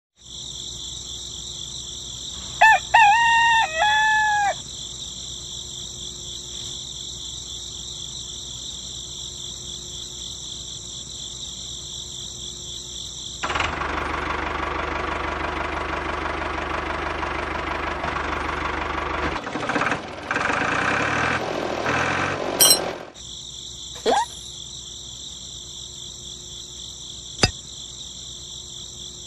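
Insects chirring steadily in high, even bands, with a rooster crowing once about three seconds in. From about halfway to about three-quarters through, the chirring gives way to the louder, steady whir and buzz of a small electric motor, the DIY mini tractor's. A few sharp clicks and a knock follow near the end.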